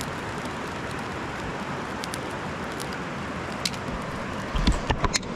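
Steady rush of a nearby stream, with small sticks in a campfire crackling and popping now and then. Near the end, a few loud low thumps.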